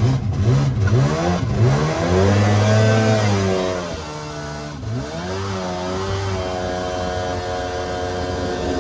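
Mini jet boat's engine revving up and down several times as the throttle is worked, dipping once more about five seconds in, then settling to a steady pitch for the last couple of seconds.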